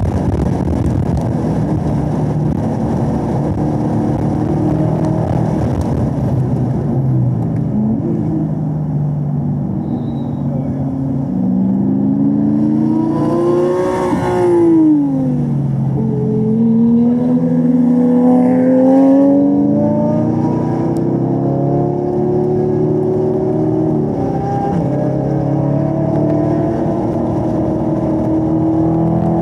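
2017 Camaro ZL1's supercharged 6.2-litre V8 running hard at track speed. Its pitch holds high at first, drops sharply about fifteen seconds in as the car slows and downshifts for a slow corner, then climbs again in steps through the gear changes of the 10-speed automatic as it accelerates away.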